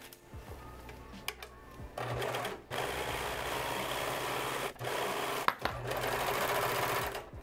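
Singer ProFinish serger (overlock machine) stitching a seam in knit fabric. After about two quiet seconds with a few small clicks, it runs steadily in several runs of a second or two, with brief stops between them.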